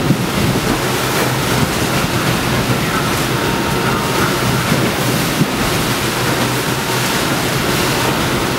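Strong wind buffeting the microphone over the rush of rough sea and waves breaking around a sailing catamaran, with a steady low hum underneath.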